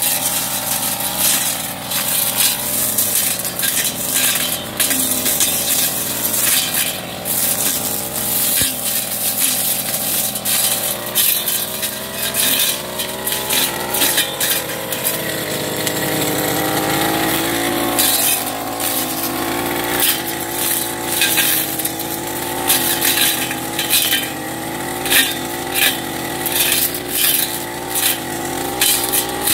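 Backpack two-stroke brush cutter running under load, its engine note wavering as it cuts through grass and brush. Frequent sharp ticks and clatters come from the cutting head striking stems, thicker in the second half.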